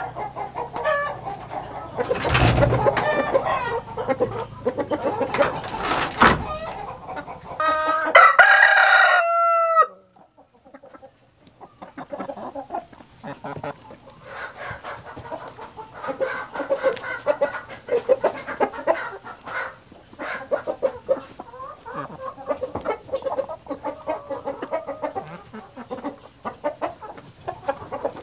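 Chickens clucking, with two loud sharp knocks in the first few seconds and a rooster crowing about eight seconds in. After a brief gap, hens cluck more softly and steadily.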